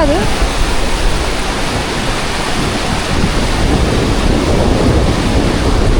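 Loud, steady roar of Tumpak Sewu waterfall close by, its water and heavy spray pouring down with a deep rumble underneath.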